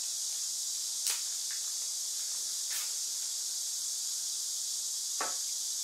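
Steady high-pitched hiss, with a light click about a second in and another brief soft sound near the end as LiPo battery packs are handled.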